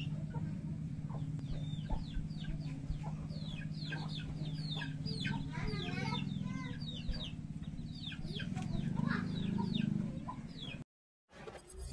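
Chickens clucking, with many short, high, falling calls coming several times a second, over a steady low hum. The sound cuts off suddenly near the end.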